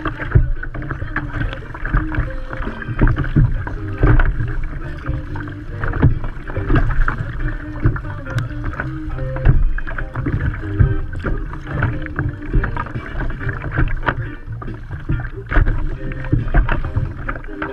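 Paddle strokes and choppy sea water splashing and slapping against the hull of a Feel Free Moken 14 sit-on-top kayak, with a steady low rumble and irregular splashes.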